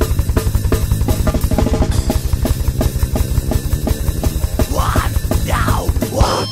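Metal band intro: a drum kit playing rapid, even double bass drum kicks over a low held bass note. Sweeping sounds rise and fall in the last second and a half, with a brief drop right at the end.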